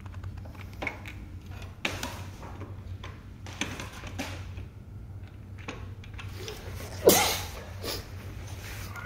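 Scattered clicks and knocks of a scooter's front wheel, fork and axle bolt being handled while the wheel is worked off the fork, with one louder clunk about seven seconds in, over a low steady hum.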